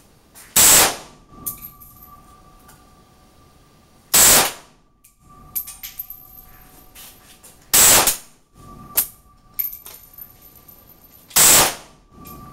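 An AK-pattern rifle fired four single shots, evenly spaced about three and a half seconds apart, each a loud sharp crack with a short echo. Small clinks of ejected brass landing come between the shots.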